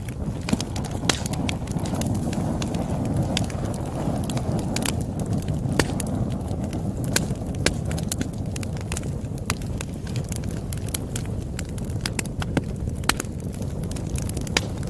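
Campfire crackling: irregular sharp pops and snaps, a few louder than the rest, over a steady low rumble of burning.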